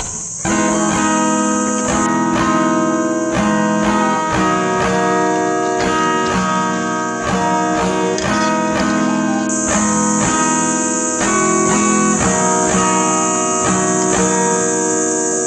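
Background music: an acoustic guitar playing a steady picked and strummed pattern, starting about half a second in.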